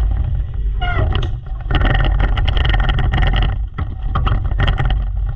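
Race car's small single-cylinder engine running hard on the onboard microphone, the throttle easing off briefly about a second and a half in and again near four seconds.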